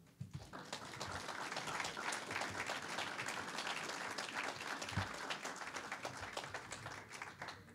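Audience applauding, a dense patter of many hands clapping that builds up over the first second, holds steady and thins out near the end.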